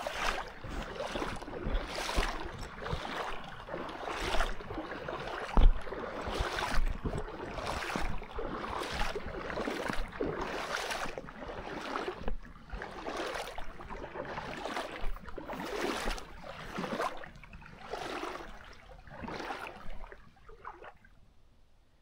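A person wading through a stream, one swishing splash of water per stride, about one a second, stopping shortly before the end.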